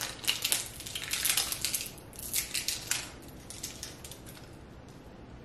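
Plastic packaging crackling and crinkling, with small clicks of hard plastic, as a printer ink tank is unwrapped and its orange protective cap is handled. The crackling is dense for about three seconds, then thins out and fades.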